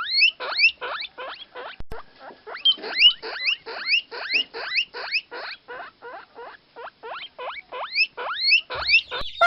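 Chicks peeping: a rapid run of shrill rising peeps, about three a second, with no pause.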